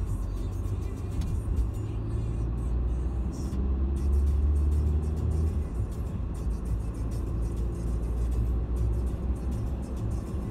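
Low, steady road and engine rumble heard from inside a moving car's cabin, swelling a little about four seconds in.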